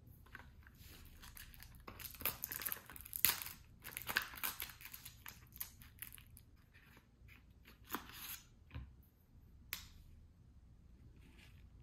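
Small cardboard eyebrow-pencil box being opened and its packaging handled: crinkling and rustling, thickest about two to five seconds in, followed by a couple of sharp clicks.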